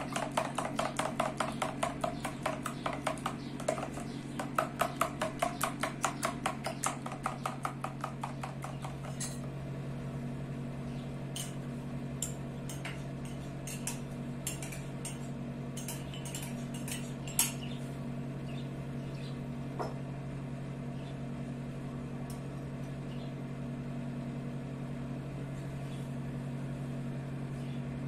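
A fork beating an egg mixture in a plastic bowl: quick, even tapping strokes, about five a second, that stop about nine seconds in. After that come a few light clinks of a metal spoon against a glass bowl, over a steady low hum.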